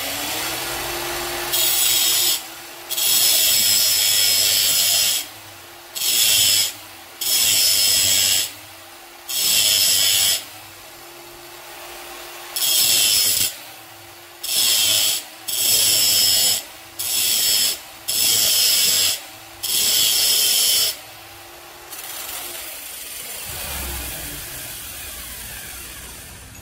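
Cordless angle grinder grinding down the groove of a metal pulley, in about eleven short passes of loud grinding with the motor's hum dipping between them. The grinder stops about 22 seconds in and runs down.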